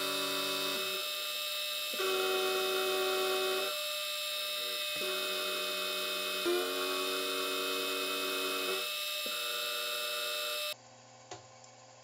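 Milling machine spindle with an end mill cutting an angled face into an aluminium block: a steady whine of several tones that shifts in pitch every second or two. It stops suddenly near the end.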